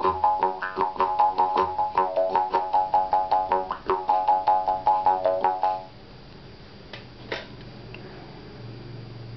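Homemade bamboo jaw harp plucked in a fast, even rhythm, about five plucks a second, giving a twangy drone whose overtones shift to make a melody. The playing stops about six seconds in, followed a second later by a single click.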